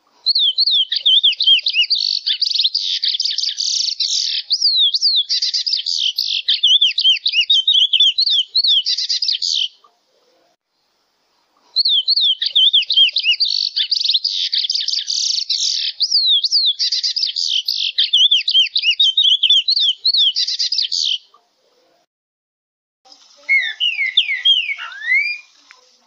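Chestnut-bellied seed-finch (curió) singing: two long phrases of rapid, high, twittering warbles, each about nine seconds, with a two-second pause between. Near the end, after a short silence, a different bird starts a song of slurred falling whistles.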